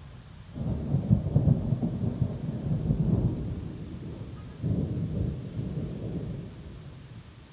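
Thunder rumbling. A peal breaks in about half a second in and rolls for a few seconds, then a second surge comes near five seconds and trails off.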